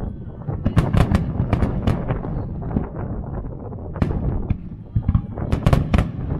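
Japanese aerial firework shells bursting in quick succession: a rapid run of sharp bangs about a second in and another near the end, over a continuous low rumble of booms.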